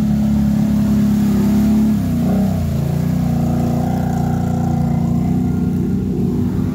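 ATV engine running hard under load through mud. Its revs dip about two seconds in and then climb back up and hold.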